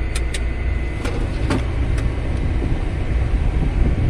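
Tractor engine running steadily, heard from inside the cab, with the PTO still engaged and driving a cotton module builder. A few light clicks come in the first two seconds.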